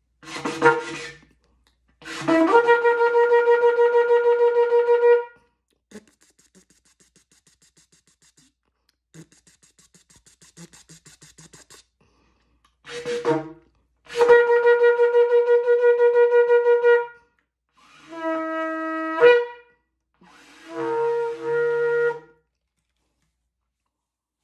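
A shofar blown in a series of blasts. First comes a short blast, then a long steady one of about three seconds. After a quiet stretch there is another short blast and a second long steady blast. Near the end come two shorter notes, the first of which jumps up in pitch just before it stops.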